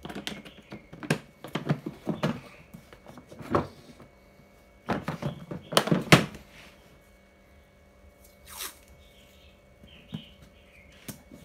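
Hard plastic Makita tool case being handled: a run of sharp clicks and knocks from its latches and lid over the first six seconds or so. About eight and a half seconds in comes a short ripping sound as masking tape is pulled off the roll.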